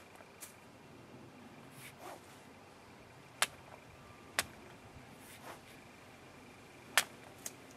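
Small fixed-blade neck knife slashing into a taut hanging rope: a handful of short, sharp snaps as the blade bites through the fibres, the loudest near the end.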